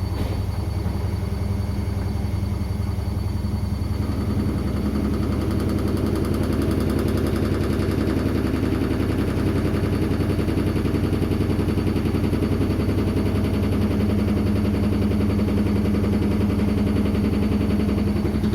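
Midea MWMFL070HEF front-loading washing machine on a high-speed spin, making a loud, steady rapid rattle over a low hum. The owner takes this spin noise for a fault that began after the motor and PCB were replaced.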